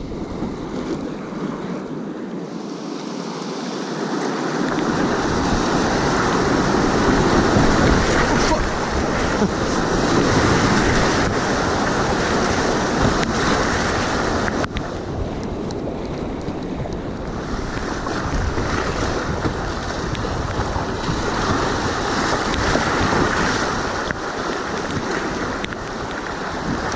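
Whitewater rapids rushing loudly around a kayak, the churning water swelling and easing as the boat runs through.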